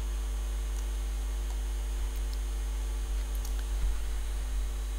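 Steady low electrical mains hum from the room's sound system, with a few faint, short clicks.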